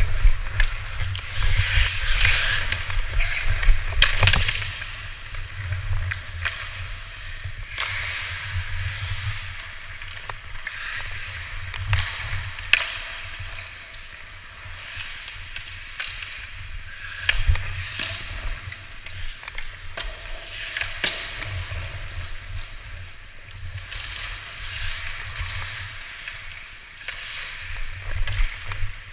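Ice hockey skate blades carving and scraping on rink ice in swells, loudest in the first few seconds, with sharp clicks of sticks and puck now and then and a low rumble underneath.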